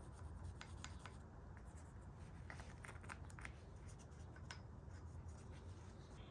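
Faint scratching with scattered light clicks, over a low steady hum.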